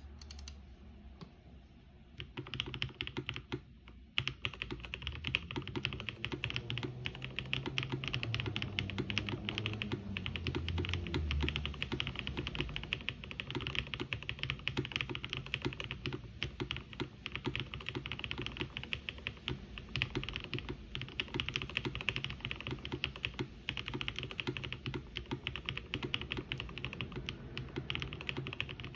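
Mechanical keyboard typed on fast and continuously: a Kyuu clone with Black Cherry Pie linear switches (Cherry top housings, cream stems, black bottoms) on an aluminum plate, with CRP keycaps and Durock V2 stabilizers. The typing starts about two seconds in, breaks off briefly, then runs on without pause.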